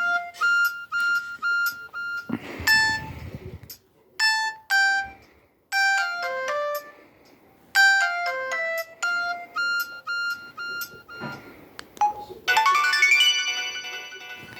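Samsung SGH-M200 mobile phone playing its built-in tones: a run of short electronic beeping melodies, one after another with brief gaps, some repeating the same falling phrase, ending in a busier, fuller-sounding jingle. A dull bump sounds about two to three seconds in.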